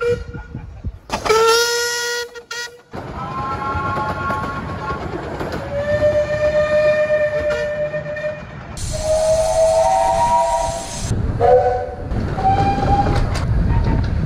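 A series of loud locomotive whistle blasts from the Romney, Hythe & Dymchurch Railway's 15-inch gauge steam locomotives, heard one after another. Some are a single held note and others are multi-note chords, each lasting from under a second to a few seconds. Train running noise and rumble sit underneath, strongest near the end.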